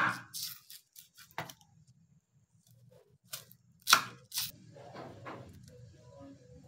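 Chef's knife slicing through a red onion on a wooden cutting board in sharp single cuts, about six in all. The loudest cuts come at the start and about four seconds in, with a lull between.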